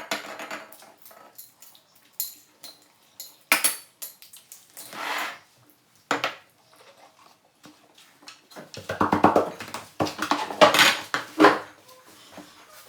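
Dishes and cutlery clinking and clattering in an irregular string of knocks, busiest in the last few seconds.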